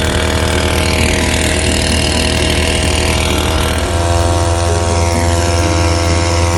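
Small 2 HP weed-cutter engine rigged as a boat motor, running steadily, with a hiss over it. Its note shifts slightly about four seconds in.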